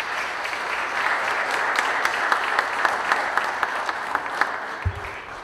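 Audience applauding a speaker's introduction: a dense patter of many hands clapping that thins and fades near the end, with a few low knocks just before it dies away.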